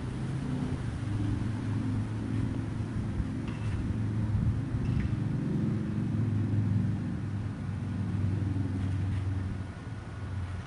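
Engine of construction machinery running steadily with an even low hum, with a couple of faint clinks a few seconds in.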